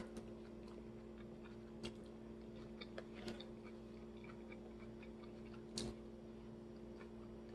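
Faint chewing of a mouthful of chicken salad, with a few soft crunches about two, three and six seconds in, over a steady low hum.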